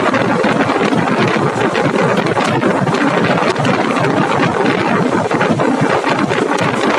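Passenger train running at speed: steady wheel-on-rail noise and coach rattle with a constant fine clatter.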